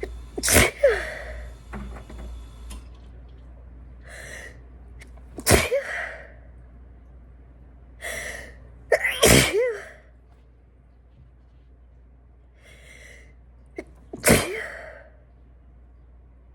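A woman sneezing four times, a few seconds apart, each sneeze sudden and loud with a short falling voiced end. Quick breaths in come before most of them.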